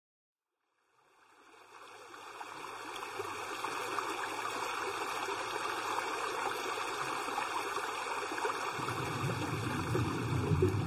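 A steady rushing noise, like flowing water, fades in over the first few seconds and holds, with a low hum joining near the end: the build-up of a produced intro that leads into music.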